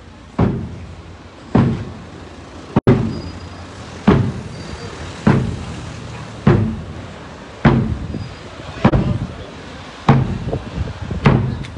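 Marching bass drum struck in a steady beat, one heavy thump about every second and a bit, with no band playing over it: the drum is keeping marching time for a brass band between tunes. A few lighter, quicker taps come in near the end.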